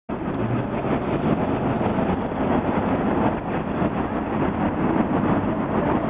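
Steady vehicle engine and cabin rumble heard from inside the vehicle while it waits in traffic, with no horn sounding.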